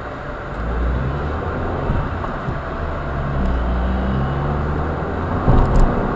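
Car engine running and tyre and road noise while driving along, a steady low drone. Two short knocks come close together near the end.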